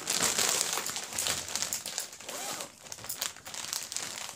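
Clear plastic packaging crinkling in irregular crackles as a saree wrapped in it is handled and opened.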